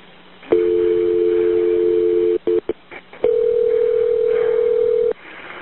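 Telephone line tones on a recorded 911 call: a steady two-note tone for about two seconds, a few short beeps, then a single steady tone for about two seconds. They come as the call is handed over to fire rescue.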